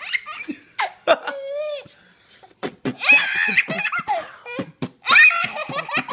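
A baby laughing hard in repeated high-pitched bursts, with a short pause about two seconds in.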